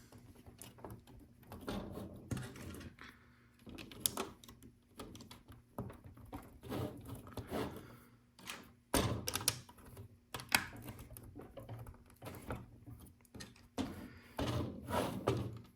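Small LEGO pieces clicking and clattering as they are handled and pressed onto the build: irregular taps and snaps, several clustered around the middle and again near the end.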